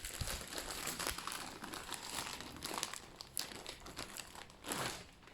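Packaging being unwrapped and handled: irregular crinkling and rustling of wrapping material while a parcel is opened.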